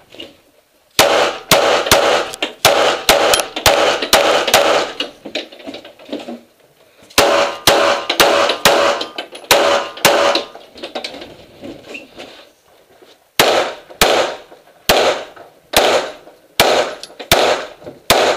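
Open-division competition pistol with a red-dot sight fired rapidly in three strings: a fast run of shots about a second in, a second run a little after the middle, and evenly spaced shots near the end, with short quiet gaps between the strings. Each shot is a sharp crack with a brief ring-out.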